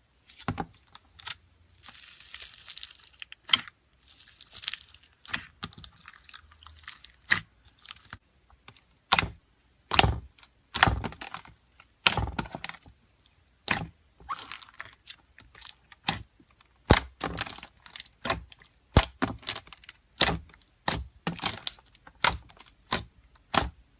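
Slime being pressed and stretched by hand, making a run of sharp pops and clicks at irregular spacing, with two longer crackling stretches in the first few seconds.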